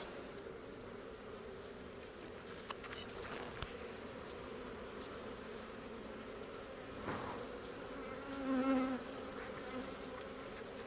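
Honeybees buzzing steadily as a colony, with a few faint clicks and a brief louder swell of buzzing near the end.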